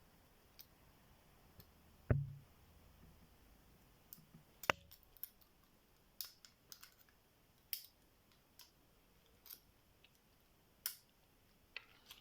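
Small, irregular metallic clicks and taps of a pick pushing down the pins of a tubular lock under light tension, as the pins begin to set. There is a louder knock about two seconds in and another just before five seconds.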